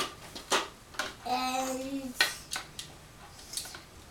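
Plastic magnetic letters clattering as a hand rummages in a clear plastic jar: several sharp clicks and rattles.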